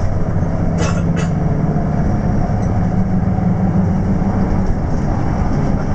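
Intercity bus on the move, heard from inside the cabin: a steady low engine drone mixed with road noise. Two short clicks come about a second in.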